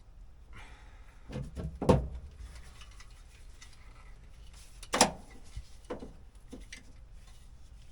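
A few sharp knocks and clunks of hard objects being handled, loudest about two seconds in and again about five seconds in, with a couple of lighter knocks after.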